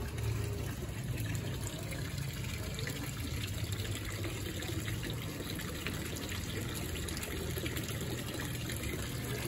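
Water splashing and trickling steadily from a stone garden fountain, thin streams pouring from urn spouts into a basin below.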